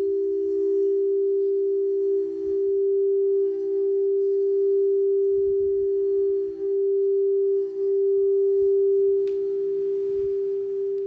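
Frosted quartz crystal singing bowl tuned to G, sung by rubbing a wrapped mallet around its rim: one sustained, steady tone with a slow wavering beat and a few brief dips in loudness.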